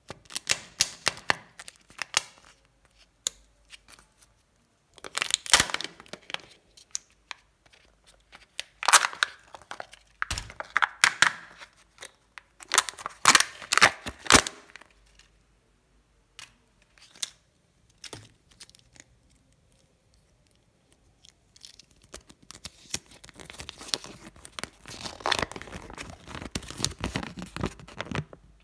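The printed foil seal of a Kinder Joy egg's plastic shell being peeled back in several short bursts of tearing and crinkling. Near the end comes a longer stretch of paper crinkling as the folded instruction leaflet for the toy is opened.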